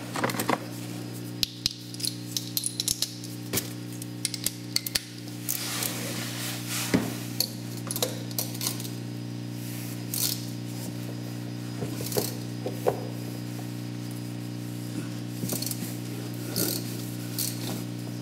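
Gloved hands working a car's spin-on oil filter loose by hand from beneath the engine, up through an undertray access door: irregular clicks and knocks in the first five seconds, then scraping and rubbing. A steady low hum runs underneath.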